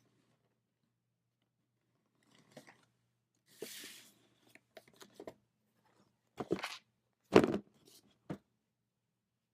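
A cardboard shoebox and its paper packaging being handled: a brief rustle, then several short knocks and thumps, the loudest two about two-thirds of the way through.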